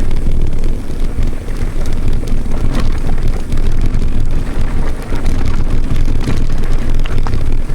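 Loud, steady wind buffeting on the microphone, together with the rumble and scattered knocks and rattles of a mountain bike running fast over a rough, bumpy track.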